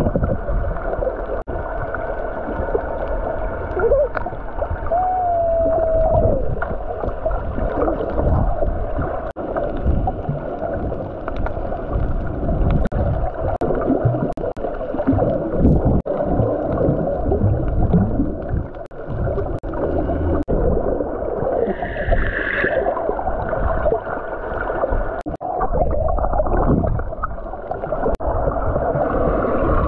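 Muffled underwater sound picked up by a camera held below the surface while snorkelling: water rushing and gurgling with bubbles. A short whining tone comes about five seconds in, and a brighter splash a little past twenty seconds.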